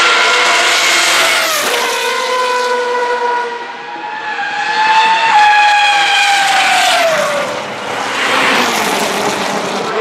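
Open-wheel racing cars passing one after another at full speed, their high-revving engines dropping sharply in pitch as each goes by. The loudest pass comes about five seconds in.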